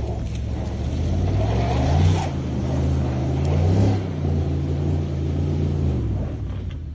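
Pickup truck engine revving hard under load while it strains to pull a school bus out of a ditch on ice: two rising revs, about two seconds in and again near four seconds, then held at a steady high pitch before easing off near the end.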